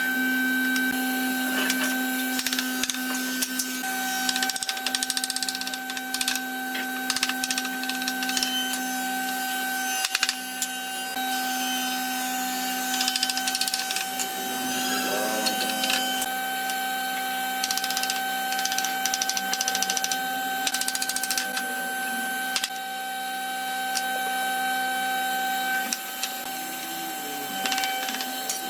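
An electric workshop power tool's motor running with a steady hum, with many short clicks and knocks from the wood being worked.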